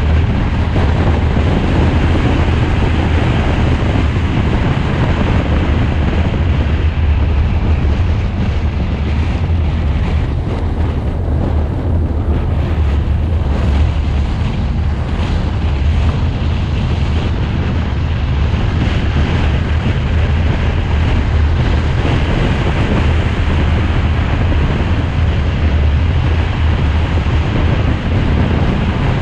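A car driving along, heard as steady wind buffeting the microphone over a constant low rumble of road and engine noise.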